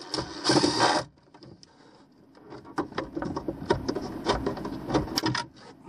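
Cordless power driver running in one short burst near the start, backing out a mounting screw. After it comes a scatter of clicks and knocks as the unit and its wires are handled.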